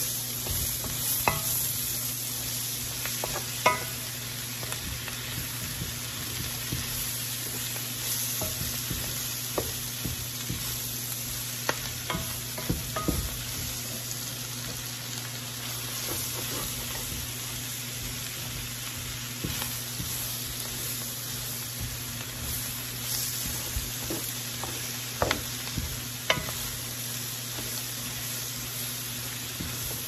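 Chopped cabbage sizzling as it fries over high heat in bacon grease and butter in a large skillet, stirred steadily with a wooden spoon that scrapes through the pan. A few sharp knocks of the spoon against the pan, the loudest about three and a half seconds in.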